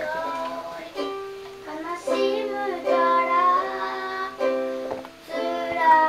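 A child singing a song to strummed chords on a small stringed instrument, the playing and singing breaking off briefly twice.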